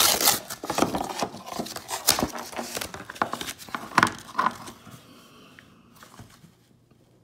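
Packaging being handled and opened: rustling and crinkling with sharp crackles and clicks, dying down about five seconds in.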